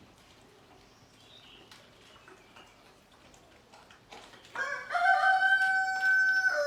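A rooster crowing once, starting about four and a half seconds in with a short rising lead-in and then holding one long steady note for about two seconds. Before it there is only faint background.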